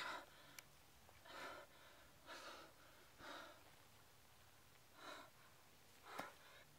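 A man gasping for breath: about six quiet, ragged breaths roughly a second apart, the first, at the start, the sharpest.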